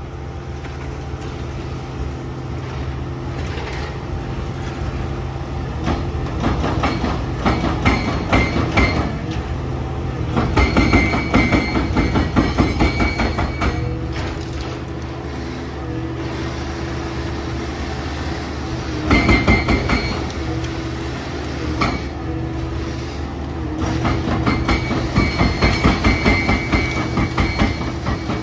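Komatsu hydraulic excavator's diesel engine running steadily, with several spells of rapid, rhythmic metallic clanking laid over it.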